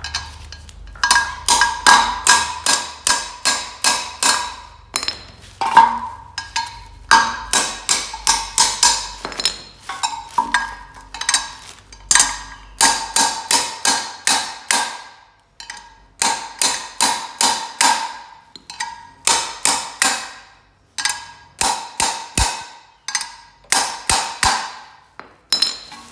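A hammer striking a wrench set over an oil pickup tube, driving the tube into a new small-block oil pump. Quick runs of sharp metal blows, about three a second, each with a ringing note, broken by short pauses.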